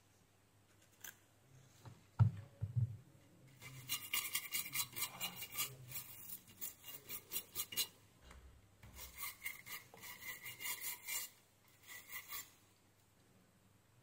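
A brush scrubbing the bare charging-port pads of a phone's circuit board to clean them. It is a scratchy rubbing in bursts of quick back-and-forth strokes, several a second, with a low thump about two seconds in.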